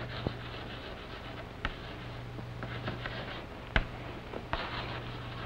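Chalk writing on a blackboard: faint scratching broken by several sharp taps as the strokes go down, over a steady low hum.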